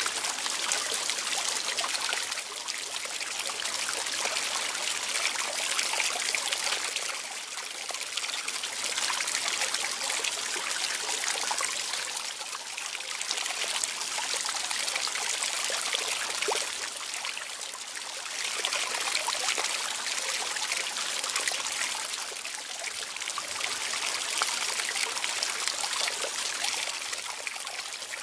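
Water trickling and running, a steady splashing hiss that swells and eases about every five seconds.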